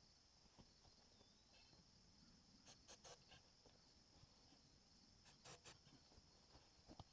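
Near silence, with two faint groups of three short ticks, about three seconds in and again about five and a half seconds in.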